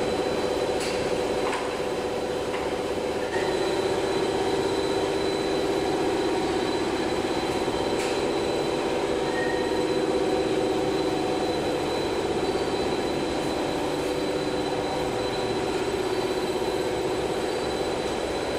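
Cable sheath extrusion line running: a steady mechanical drone from its drives and winding wheels, with a constant high whine and a few faint ticks.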